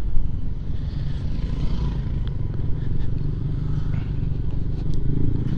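Yamaha Aerox scooter running at a steady cruising speed, a low engine drone with road and wind noise.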